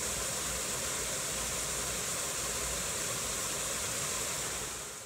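Small waterfall splashing into a rock pool: a steady rush of falling water that fades out near the end.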